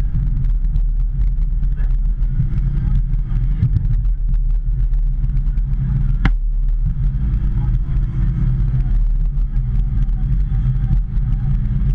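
Hitachi ZX210 excavator's diesel engine running steadily under working load, with a single sharp knock about six seconds in.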